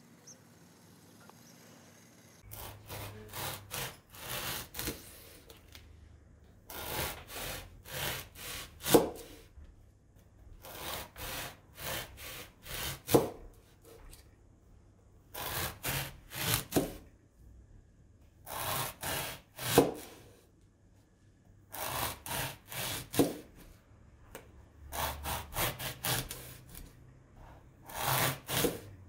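A knife sawing back and forth through a blue foam tube, slicing off rings one at a time: each slice is a short run of rasping strokes, most ending in a sharp tap as the blade meets the plastic cutting board, about eight slices in all. The first couple of seconds are near silent.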